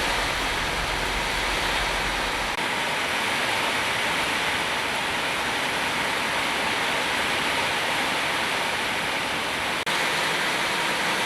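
Steady rain falling with a constant hiss. A low rumble under it stops abruptly about two and a half seconds in, and the sound cuts out for an instant near the end.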